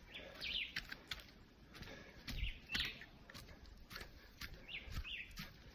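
Birds chirping in short, scattered calls that slide up and down in pitch, with faint clicks in between.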